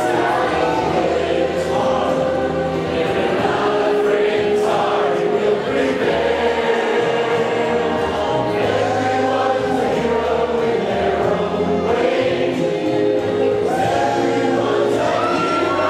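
Several voices singing together in harmony over musical accompaniment, holding long notes.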